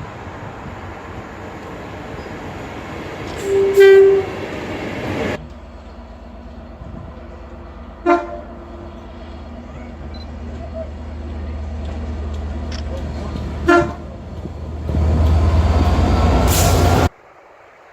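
Train horns sounding by the tracks: one loud, short blast about four seconds in and two brief toots later, over a steady rumble. Near the end a train rumbles past very loudly, cut off abruptly.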